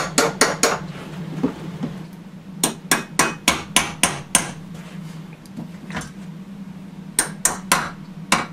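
Hammer tapping concrete wedge-anchor bolts, with washer and nut on top, down through a theater seat's steel floor plate: sharp metal-on-metal taps in quick runs of about three or four a second, with pauses between the runs.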